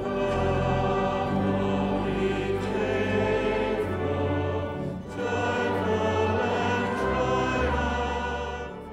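Church choir singing a slow sacred piece in long held notes, in two phrases with a short break about five seconds in, fading out near the end.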